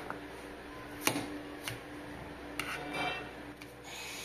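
Kitchen knife chopping garlic cloves on a plastic cutting board: a few separate sharp knocks, roughly a second apart.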